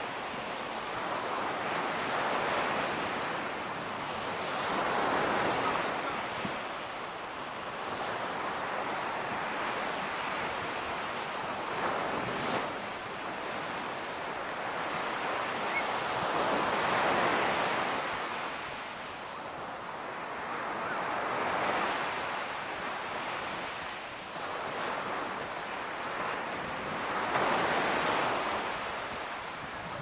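Ocean surf breaking on a sandy shore, the wash swelling and easing every few seconds.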